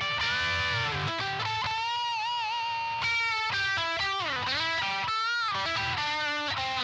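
Vester Catalina series Stratocaster electric guitar playing a lead line of held notes, with vibrato and string bends that slide the pitch down and back up.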